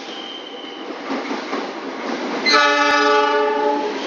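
GE CC 206 diesel-electric locomotive approaching at speed, its running noise growing louder. About two and a half seconds in it sounds its multi-tone air horn in one steady blast of about a second and a half.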